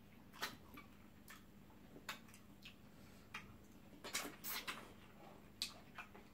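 Quiet, sharp, irregular mouth clicks and lip smacks of people chewing eba and slimy okra soup eaten by hand, with a quick run of them about four seconds in.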